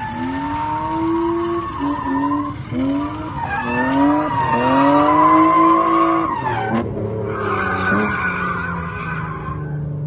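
Drift car's engine revving hard as it slides through a corner, its pitch rising and falling in several quick sweeps, then climbing and dropping sharply about two-thirds of the way through, with its tyres squealing and skidding.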